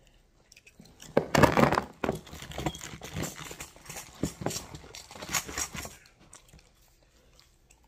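Handling noise from a bundle of crochet hooks being sorted in the hand: a run of irregular clicks, taps and rustles for about five seconds, stopping near the end.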